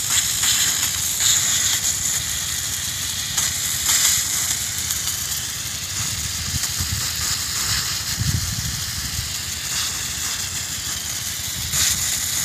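Steady hiss of water spraying from field irrigation sprinklers, with irregular low rumbling that is strongest around eight seconds in.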